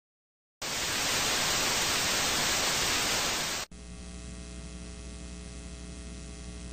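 Analogue TV static hiss starts about half a second in, loud and even, then cuts off abruptly after about three seconds into a quieter, steady electrical hum with many evenly spaced tones: the sound of a VHS tape starting playback.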